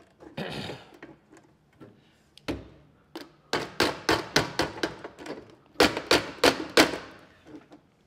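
Hand knocks on the top light-box panel of a glass-door commercial fridge as the unscrewed panel is worked loose. A brief scraping rustle comes near the start, then a quick run of about five sharp knocks around the middle, and four louder knocks a second later.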